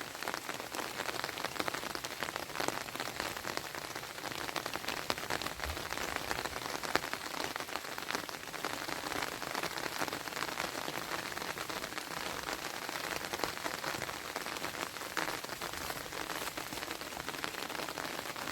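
Steady rain falling: an even hiss made of many small drop hits, unchanging throughout.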